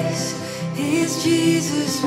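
Live acoustic worship band playing a song: acoustic guitars over keyboard and cajon.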